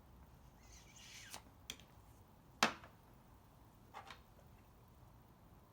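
A brief rustle, then a few sharp clicks and knocks, the loudest about two and a half seconds in, from hands handling the leaf blower's parts during a tune-up.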